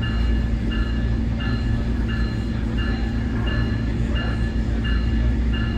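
Onboard a Nippon Sharyo DMU: a steady diesel rumble, with a bell-like ding repeating evenly about one and a half times a second.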